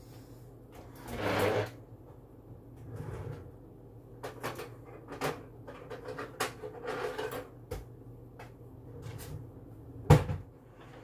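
Rummaging in a low kitchen cupboard: a rustling scrape about a second in, then scattered light knocks and clatter, and a sharp bang, the loudest sound, about ten seconds in as the cupboard shuts.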